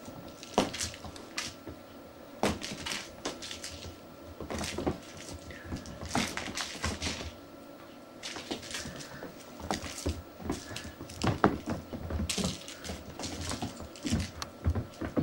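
Irregular taps, scuffles and rustles of kittens wrestling and pouncing on a carpeted floor, busiest about six seconds in and again near the end.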